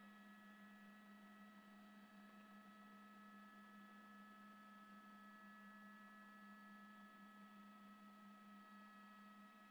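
Near silence with a faint, steady hum made of a few held tones, one low and several higher, unchanging throughout.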